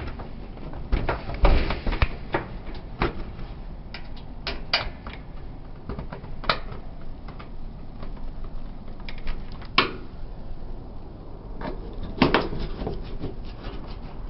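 Clicks, knocks and rubbing of dryer cabinet parts being handled and fitted back together, at an uneven pace, with a few sharper knocks near the middle and near the end.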